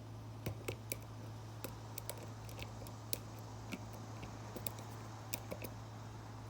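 Lock pick working the pins of a small four-pin cabinet lock: scattered light clicks at irregular intervals, over a steady low hum.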